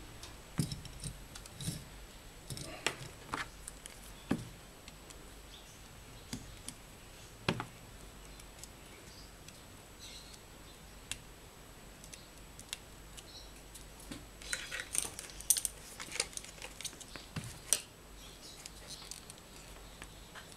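Scattered light clicks, taps and rattles of small metal and plastic parts of an electric grass trimmer's motor handled by hand, with a busier run of clicks in the last third.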